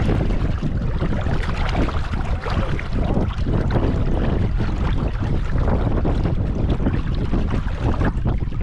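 Wind buffeting the microphone aboard a small sailboat under sail: a steady, rough rushing noise, heaviest in the low end.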